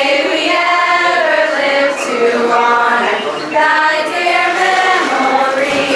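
Background music carried by sung vocals, several voices holding long notes, with no beat or bass.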